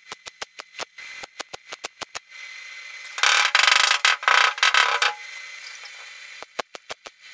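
Sheet-metal work on a patch panel: a quick run of sharp clicks, then a loud rushing burst lasting about two seconds, then more clicks near the end.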